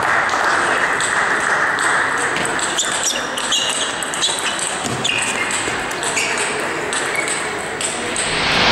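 Table tennis balls clicking off bats and tables, many rallies going at once, over the steady hubbub of a large sports hall.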